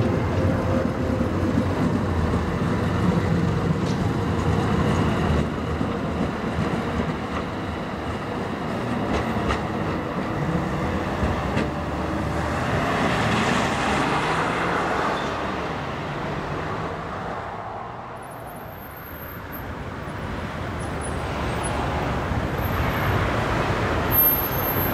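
City tram running on street rails, with a steady rumble of wheels and motors. One tram passes loudly about halfway through, and after a lull another approaches, growing louder near the end.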